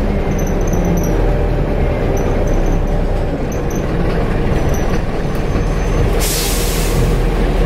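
Optare Solo bus's Mercedes turbodiesel engine and Allison automatic gearbox under way, heard from inside the passenger saloon as a loud, steady drone, with a faint high turbo whistle around the middle. A hiss lasting under a second sounds near the end.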